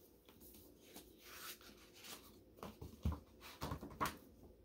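Faint rustling and soft knocks of a hardcover book being handled, with a low thud about three seconds in.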